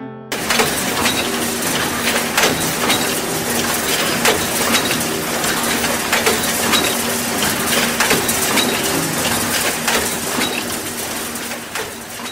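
Sewing machines running in a workshop: a dense, continuous mechanical clatter full of quick clicks, starting suddenly.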